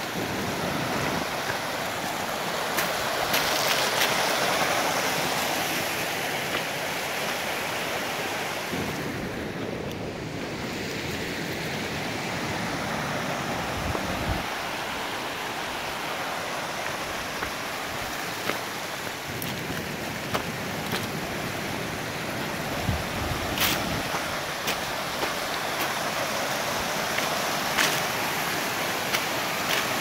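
Small mountain creek rushing steadily over rocks and little cascades, with a few sharp clicks now and then.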